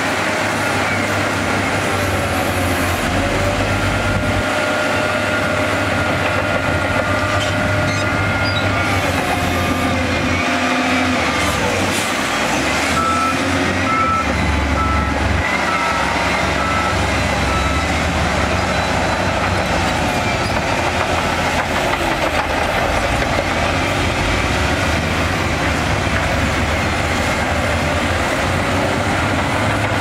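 Diesel engines of wheel loaders and a Shantui bulldozer running under load while moving dirt. A reversing alarm beeps steadily for about five seconds midway.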